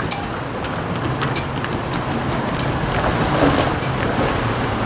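Road traffic driving over a railway grade crossing: car engines and tyre noise swelling as vehicles pass, with scattered sharp clacks at irregular moments.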